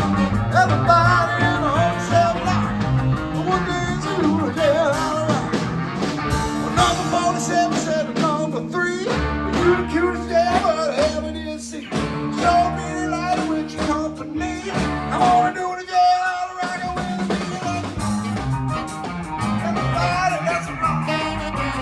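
Rock-and-roll style music with singing and electric guitar, playing continuously.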